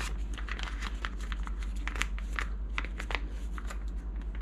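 Piping bag rustling and crinkling as hands work a coupler into it, with a scatter of small sharp clicks, a few louder ones between two and three seconds in, over a steady low hum.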